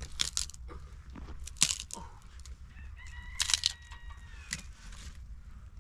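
A rooster crowing once, a held call of about a second and a half starting about three seconds in, among several sharp knocks and clatters, the loudest about a second and a half in.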